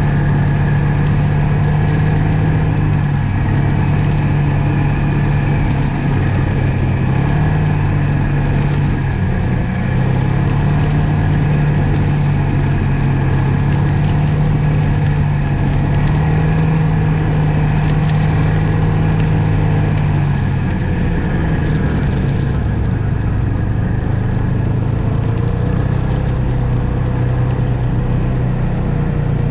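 Snowmobile engine running steadily under way, its pitch wavering slightly and easing off a little about twenty seconds in.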